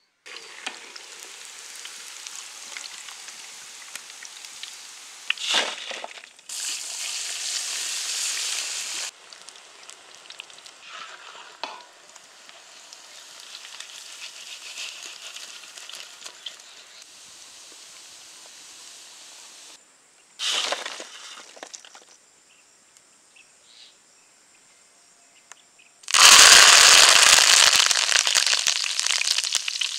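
Mutton kabab pieces deep-frying in hot groundnut oil, sizzling and crackling. The frying breaks off and starts again abruptly several times and is loudest near the end.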